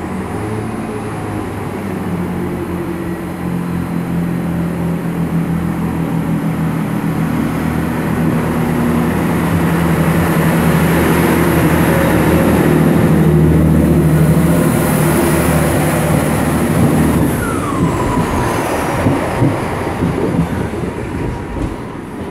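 Class 166 diesel multiple unit pulling away: its diesel engines run at a steady note under power and grow louder as the cars pass close by. About seventeen seconds in the engine note drops away with a brief falling whine, leaving a run of wheel clicks over the rail joints as the train moves off.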